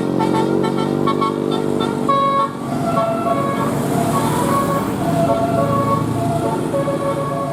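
Bus telolet horn, a set of multi-tone air horns, playing a quick tune of short notes. About two and a half seconds in it gives way to a tune of longer held notes, with vehicle noise underneath.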